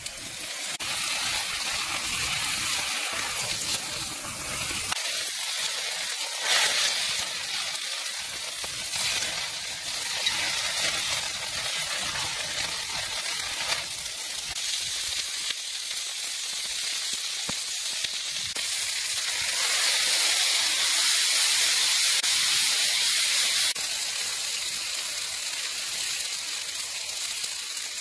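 Octopus tentacles sizzling and steaming on a hot metal plate over a wood fire, a steady hiss that grows louder for a few seconds past the middle.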